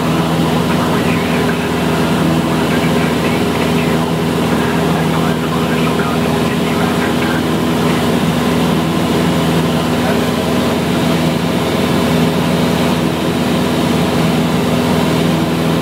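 Cessna's piston engine and propeller droning steadily on approach, heard from inside the cabin.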